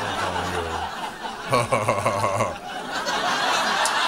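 Audience laughing: a couple of individual laughs stand out in the first two seconds, then broader laughter from the crowd swells about three seconds in.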